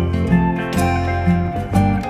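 Background music: a guitar-led track with strummed chords and a steady beat.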